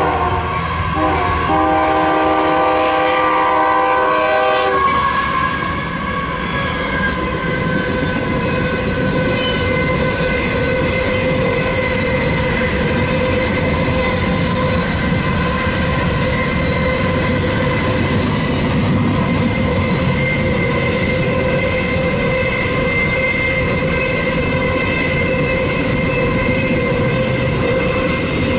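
A locomotive horn sounds a chord of several notes for about the first five seconds. Then the loaded CSX coal train's hopper cars roll past with continuous wheel-on-rail noise and a steady ringing tone over it.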